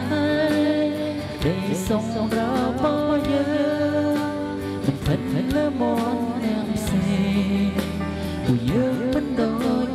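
A person singing a slow song into a wireless handheld microphone over a backing music track, amplified through a speaker. The voice holds long notes with a wavering vibrato.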